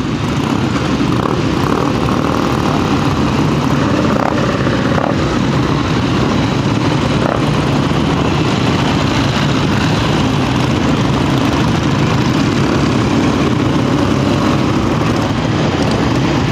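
Panther motorcycle engine running steadily, a continuous even drone.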